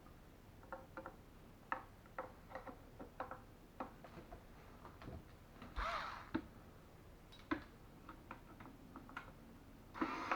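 Scattered light clicks and taps of hands working a cabinet drawer front and its mounting hardware, irregular rather than rhythmic, with a short rubbing or sliding sound about six seconds in.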